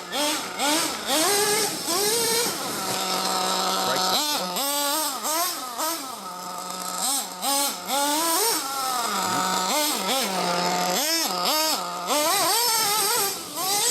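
Ofna Dominator nitro RC truck's RB K10 glow engine revving up and down in repeated bursts as it is driven, dropping back to a steady idle between them.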